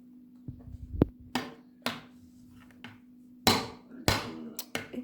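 Irregular sharp knocks and bangs, the loudest two about three and a half and four seconds in, over a steady low hum.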